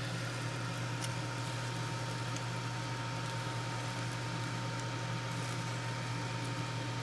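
Steady hum of a running kitchen appliance motor, with a thin high tone joining in just after the start.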